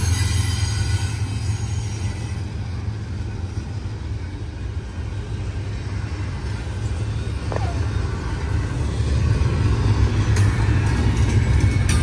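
Low, steady rumble of a freight train rolling past, easing a little in the middle and growing louder again near the end.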